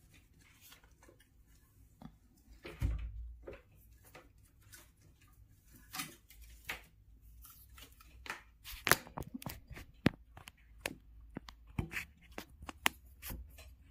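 Handling noise of stepper-motor wires being sorted and plugged into a 3D printer controller board: scattered small clicks and rustles, a soft thump about three seconds in, and a quick run of clicks around nine to ten seconds in.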